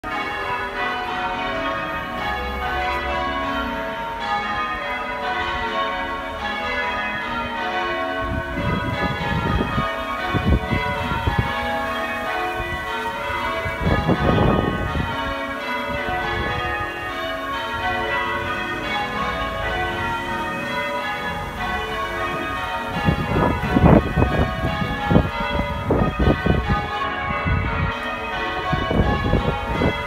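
Church tower bells ringing continuously, a steady stream of overlapping bell strokes. Gusts of wind rumble on the microphone a few times, loudest in the last third.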